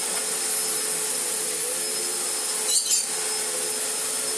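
A 1990s Panasonic MC-E upright vacuum cleaner running steadily with a high whine as it is pushed over a rug. There is a brief scratchy rattle near the three-second mark.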